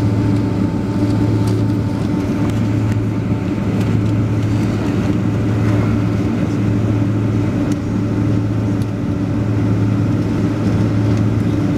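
Steady cabin noise inside a Boeing 767-300: the jet engines and air system make an even drone with a constant low hum and a fainter higher tone. The pitch and level do not change.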